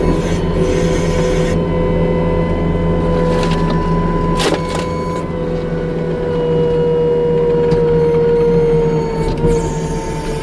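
New Holland C327 skid steer's diesel engine running steadily under a strong, steady hydraulic whine that sags slightly in pitch near the end, as under load. One sharp crack about halfway through.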